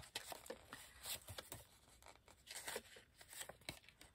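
Faint paper handling: a run of short, soft rustles and light taps as the pages of a booklet and loose papers are moved.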